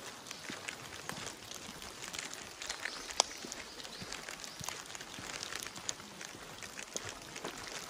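Light rain falling, a steady hiss with irregular drops tapping close by. One sharper tap comes about three seconds in.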